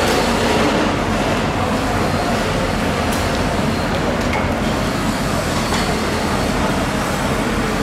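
Steady background din of a busy market hall: a constant low engine-like hum with indistinct voices, and no distinct knife strokes standing out.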